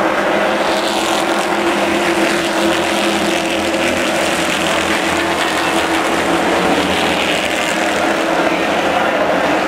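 A pack of V8 late model stock cars racing past at full throttle, their engines merging into one steady, loud drone.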